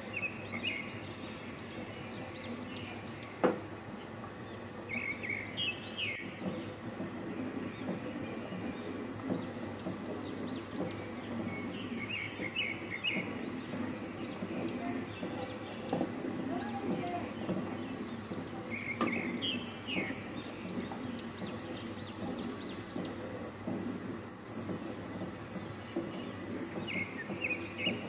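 Small birds chirping in short bursts every several seconds over a steady low background noise, with one sharp knock about three seconds in.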